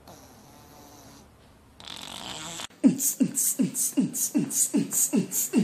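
A short breathy hiss, then from about three seconds in a fast beatbox rhythm: deep, falling kick-drum sounds alternating with hissing hi-hat sounds, about three kicks a second.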